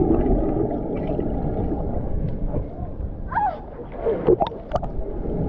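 Muffled underwater pool noise heard through a submerged camera, with bubbling and water movement from a swimmer. Near the end, sharper splashes and clicks come as the camera reaches the surface.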